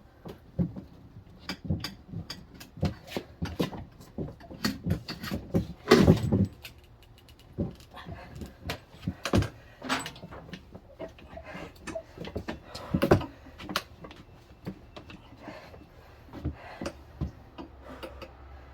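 Tire being worked onto its rim on a manual tire changer: irregular metal knocks, clanks and scraping from the tire iron and changer, with the rubber bead rubbing against the rim, where the bead keeps sticking. The heaviest thuds come about 6 and 13 seconds in.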